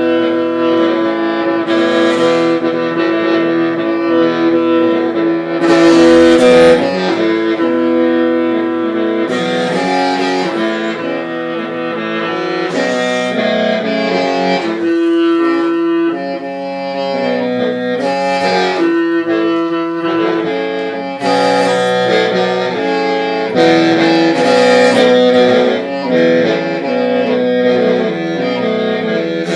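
Hmong qeej, a bamboo free-reed mouth organ, playing a melody in chords of several pipes over a held drone note. Brighter, sharper accents come every few seconds.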